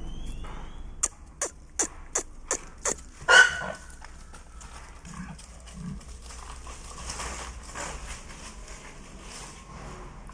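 Dog barking: a quick run of six short, sharp barks, then one louder, longer bark about three seconds in.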